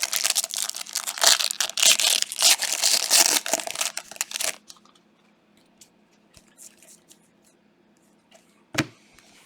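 Trading-card pack wrapper being torn open and crinkled for about four and a half seconds, then a few faint clicks and one sharp click near the end.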